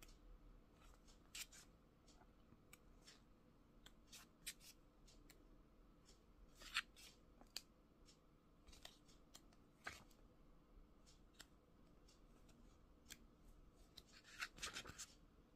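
Sheets of a patterned scrapbooking paper pad being turned one by one: faint, scattered crisp paper flicks and snaps, the sharpest about halfway and a quick cluster near the end.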